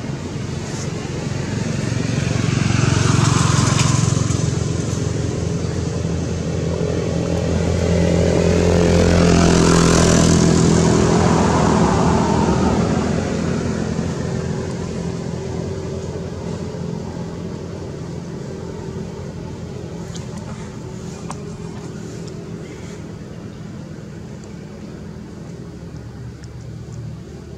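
Motor vehicles passing by: one engine swells up and fades a few seconds in, and a louder one passes around ten seconds in with its pitch dropping as it goes by. After that a fainter engine hum fades away.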